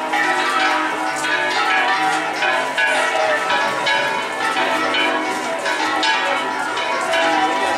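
Bells ringing in a continuous, rapid peal, with many strokes overlapping and ringing on into each other.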